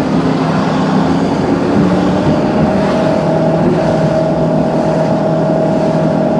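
Car running, heard from inside the cabin: a steady engine and road hum, with a single steady whine that comes in about two seconds in and holds.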